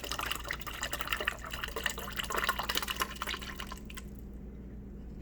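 Refrigerator water dispenser running into a plastic cup, sputtering and spitting with air trapped behind a newly installed water filter. The flow stops abruptly about four seconds in.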